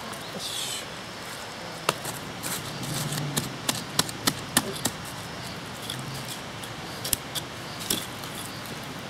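Sharp wooden clacks and taps as split kindling and a hand hatchet are handled and knocked against a wood block, with a quick run of about three knocks a second in the middle and a few more near the end.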